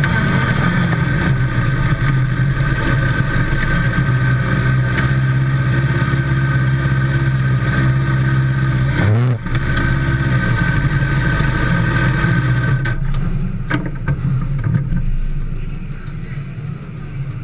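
Sprint car engine idling with a steady note. About nine seconds in the sound briefly dips and the pitch rises. Near the end the idle note fades and the sound gets quieter, leaving a lower rumble.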